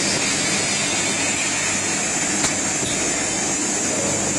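Automatic bottle printing machine running: a steady mechanical din with hiss and a low hum, and a single light click about two and a half seconds in.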